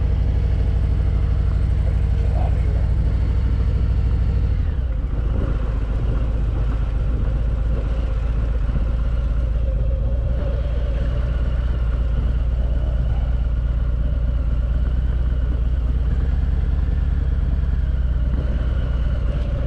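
Cruiser motorcycle engine running with a steady low pulsing beat as the bike rides off at low speed; the engine note changes about four and a half seconds in.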